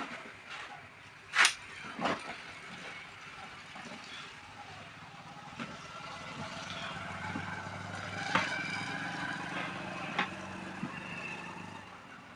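A few sharp knocks of work handling, the loudest about a second and a half in, over a steady rumble of vehicle noise that swells midway.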